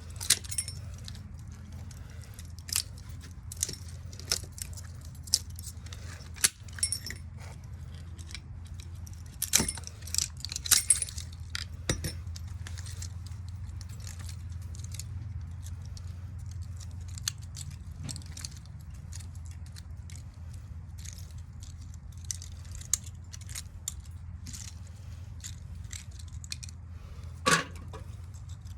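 Metal parts and copper wire of a ceiling fan motor clinking and scraping in scattered light taps as the motor is taken apart, with a louder knock near the end. A steady low hum runs underneath.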